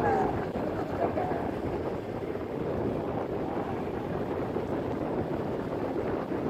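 Motorcycle riding along a paved road: a steady mix of engine and tyre noise with wind rushing over the microphone.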